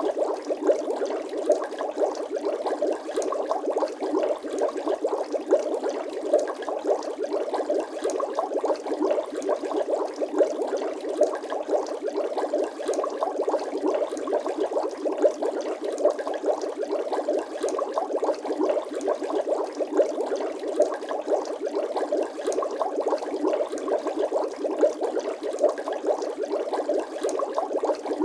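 Steady bubbling sound effect: a dense, continuous stream of small liquid pops and gurgles, like bubbles rising through water.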